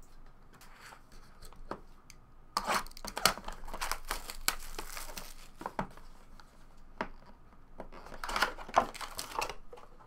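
Sealed 2017 Bowman Chrome HTA Choice card box being torn open by hand: irregular bursts of tearing cardboard and crinkling wrapper, with small knocks as it is handled.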